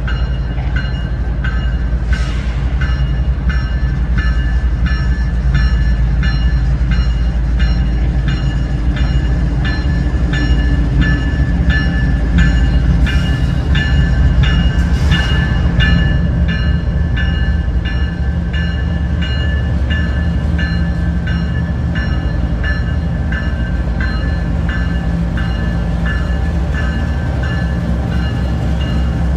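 Union Pacific diesel locomotives passing at a crawl with a deep, steady engine rumble. A locomotive bell rings steadily over it, about three strikes a second, and there are a few brief hisses in the middle.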